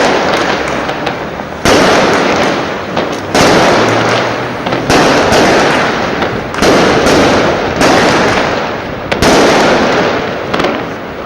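Fireworks bursting in a run of loud booms about every one and a half seconds, each dying away in a rumble with crackling between, the bursts thinning out near the end.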